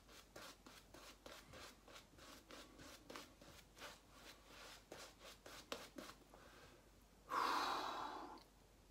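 A hand rubbing shaving-soap lather over a bearded face, a run of faint quick rubbing strokes, several a second; the lather is not building properly. About seven seconds in comes one loud exasperated breath out, about a second long.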